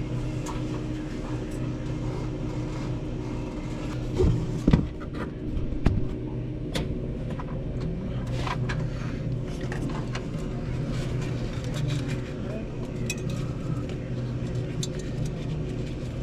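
Steady mechanical hum with scattered clicks, knocks and light metallic clatter of parts being handled, with a few louder knocks about four to six seconds in.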